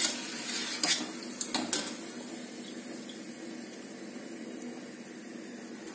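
Deep-frying oil sizzling in a steel pot as fried dough strips are lifted out with a wire strainer, with a few sharp metal clinks of the strainer against the pot in the first two seconds. The sizzle slowly fades.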